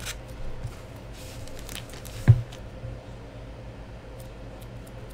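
A foil trading-card pack wrapper crinkling and cards being handled, light rustles and scrapes, with a single thump about two seconds in.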